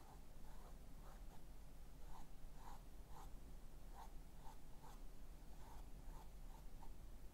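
Faint, soft swishes of a small paintbrush stroking acrylic paint onto a stretched canvas, short strokes about two a second.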